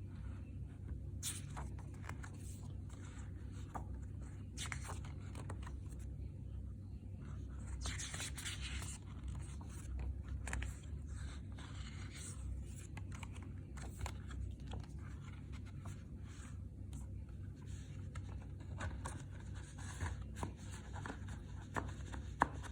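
CD packaging and paper booklet being handled: scattered small clicks and brief stretches of scraping and rustling, the longest about eight seconds in, over a low steady hum.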